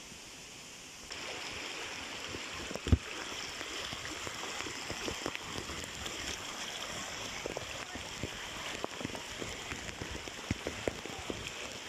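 Running water rushing steadily, cutting in abruptly about a second in. Scattered small clicks and knocks sound over it, with one loud thump about three seconds in.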